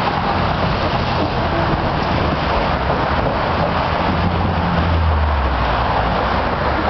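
Steady road traffic noise. A heavier vehicle's low engine drone swells about four to six seconds in.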